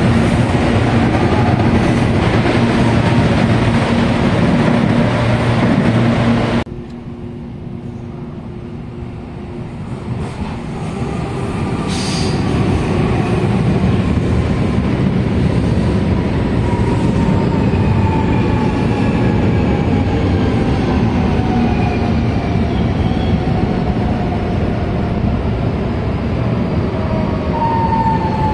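Loud running noise of an electric commuter train alongside, which cuts off about six and a half seconds in. Then a CPTM Série 2000 electric train rolls in along the platform, its rumble building and its traction motors whining down in pitch as it slows.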